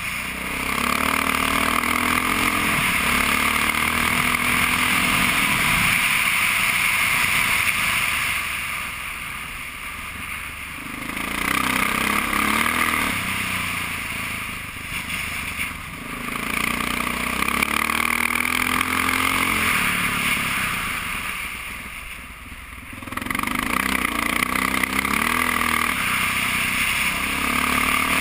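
Honda XR650R dirt bike's single-cylinder four-stroke engine under way on a gravel road, the revs rising and falling as the throttle is rolled on and off, with three brief easings of the throttle before it pulls again.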